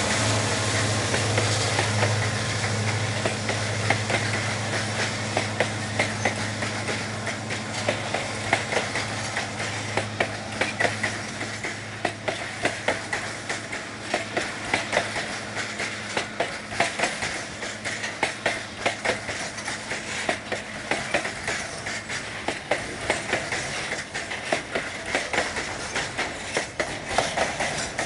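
Mid-train EMD SD40T-2 diesel helper locomotives passing and drawing away, their engine hum fading over the first several seconds. Then a long string of loaded freight wagons rolls past, with a steady clickety-clack of wheels over rail joints and metallic clanks.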